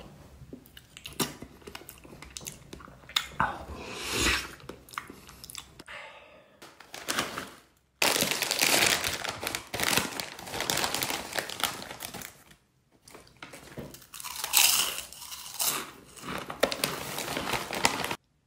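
Close-up eating sounds: soft, wet mouth noises of biting into a flan pudding. About halfway through, a crinkly plastic chip bag starts to rustle loudly as it is opened and handled, followed by crunching of tortilla chips.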